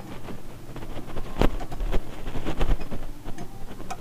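Allen wrench clicking and knocking on the brake rotor disc bolts of a motorcycle front wheel as they are loosened, with one sharp metal click about one and a half seconds in, over a low rumble.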